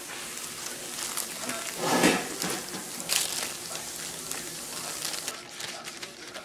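Plastic food-prep gloves and parchment paper rustling as a rolled gimbap is handled and brushed on the paper, with many small clicks and a louder bump about two seconds in.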